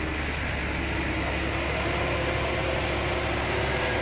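Small loaded dump truck's engine running steadily as the hydraulic hoist begins to raise the sand-filled bed, slowly growing a little louder.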